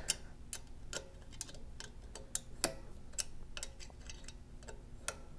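An M5 Allen key working the metal socket-head screws on the analyzer's mounting flange, loosening them a couple of turns: a run of small, irregular metallic clicks and ticks.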